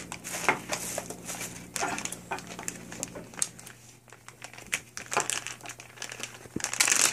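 Clear plastic Ziploc bag crinkling and rustling in irregular bursts as hands fumble at its zip seal, struggling to get it open.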